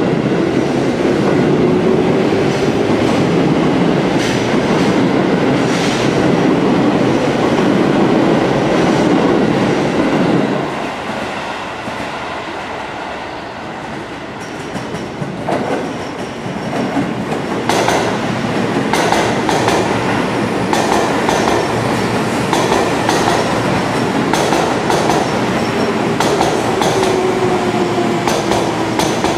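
A loud, steady rumble for about the first ten seconds that drops away suddenly. Then a Seibu 20000-series electric train arriving, its wheels clicking over the rail joints and points, with a falling whine near the end as it slows into the platform.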